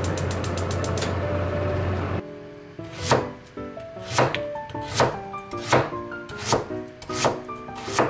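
A gas stove burner lighting: its igniter clicks rapidly for about a second over a steady low hum that stops abruptly about two seconds in. Then a kitchen knife slices through daikon radish onto a plastic cutting board, one stroke about every three-quarters of a second, over soft background music.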